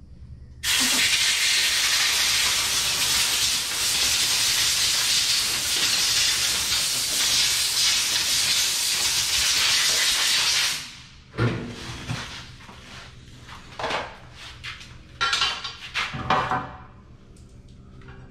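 Compressed air blowing from an air blow gun, a loud steady hiss that starts about a second in and cuts off after about ten seconds. It is followed by a few light metallic clinks and knocks of parts being handled.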